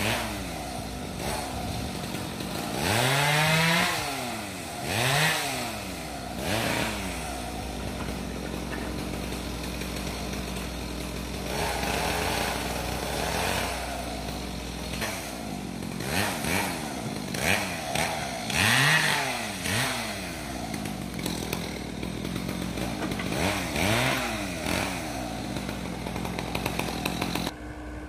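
Diesel engine of a dump truck or mini excavator revving up and falling back again and again, in irregular surges every second or two. The sound drops off sharply just before the end.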